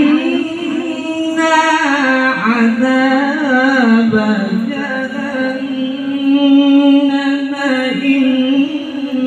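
A male qari reciting the Quran in melodic tilawah style into a handheld microphone, drawing out long held notes in a high register with wavering ornaments.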